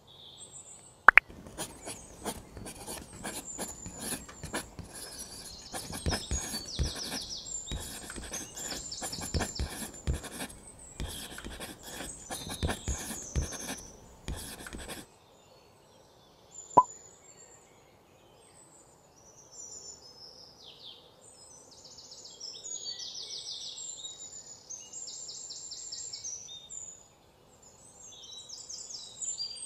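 A small metal tool scraping the heads off wooden safety matches onto a plastic tray: a rapid, scratchy run of strokes that starts with a sharp tap about a second in and stops about halfway through. Another sharp tap follows a couple of seconds later, and birds chirp in the background throughout.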